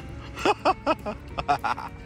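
A person's voice giving short, sharp shouted calls like "oi", in two quick groups of about three.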